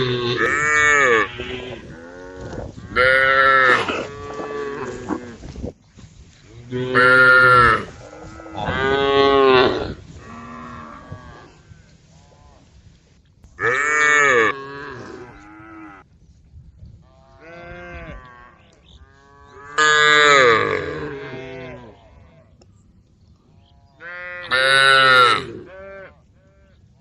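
Several cows mooing, one loud drawn-out moo every few seconds with quieter, shorter calls in between.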